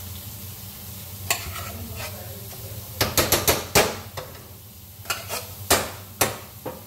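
A metal spoon knocking and scraping against an opened can of refried beans as the beans are spooned into a hot pan, with a quick run of sharp taps about three seconds in and several more near the end. Under it, a low sizzle of the beans frying in bacon grease.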